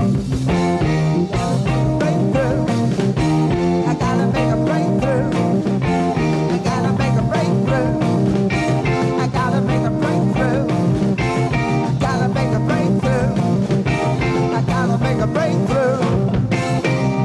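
Early-1970s hard rock band playing an instrumental passage: a lead line bending and wavering in pitch over a steady beat, bass and drums, with no singing.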